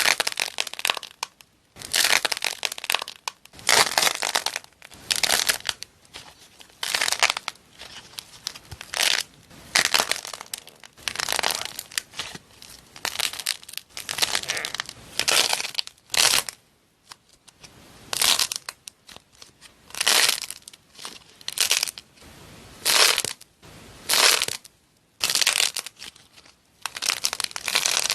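Slime being squeezed and pressed by hand, each squeeze giving a crackling, crunchy squish, about once a second.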